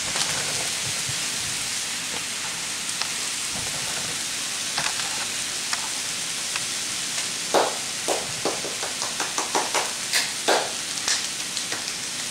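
Sliced zucchini and red bell pepper sizzling steadily in a hot skillet. From a little past halfway, a run of irregular sharp smacks, about three a second, sounds over the sizzle.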